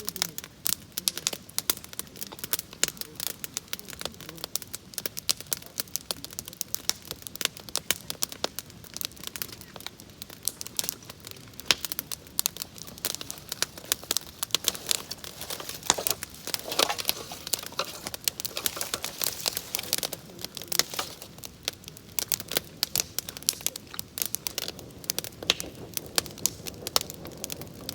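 Wood fire crackling, with many quick irregular pops and snaps.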